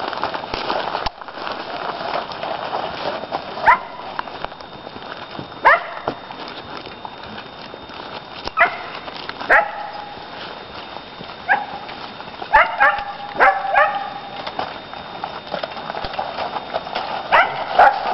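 A dog barking: scattered single barks, then quick runs of several barks about two-thirds of the way through and again near the end, over a steady background hiss.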